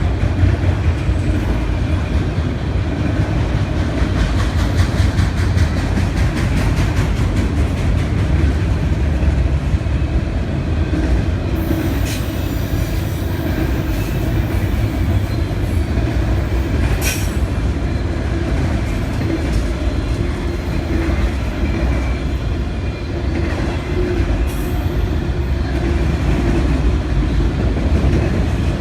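Freight train cars rolling past with a steady heavy rumble and wheels clicking over the rail joints. Short high-pitched wheel squeals come in about twelve seconds in and again near seventeen seconds.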